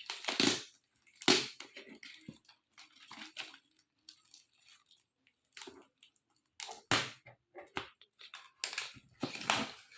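Cardboard box being cut and torn open, its wrapped packing tape cut and pulled off: irregular scrapes, crackles and crunches with pauses between them.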